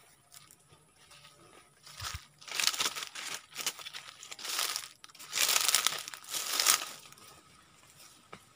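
Dry leaves, grass and fern fronds rustling and crunching as someone pushes through undergrowth on foot, mostly in two stretches from about two to seven seconds in.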